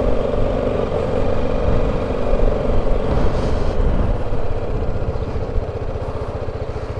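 BMW G310 GS single-cylinder motorcycle engine running as the bike rolls at low speed. About halfway through the throttle eases off and the note settles into an even, lower putter.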